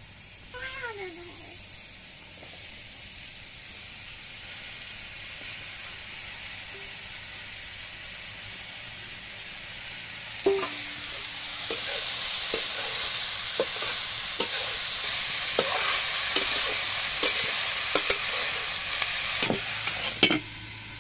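Chopped wild mushrooms frying in a steel kadhai: a low sizzle, then about halfway through a clank as a steel bowl of mushrooms is tipped in, after which the sizzling grows louder. A metal spatula clinks and scrapes sharply against the pan as the mushrooms are stirred.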